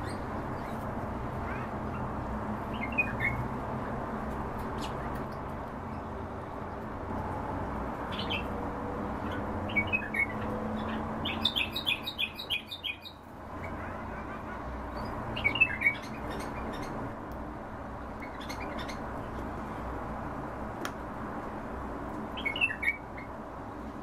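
Caged finches giving short chirps every few seconds, with a quick run of about ten notes near the middle, over a steady low hum.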